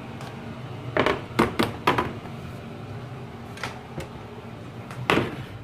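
A metal baking tray knocking and clanking against an oven's racks and door as it is put into the oven: a cluster of sharp knocks about a second in, a few lighter ones later, and one more loud knock near the end, over a steady low hum.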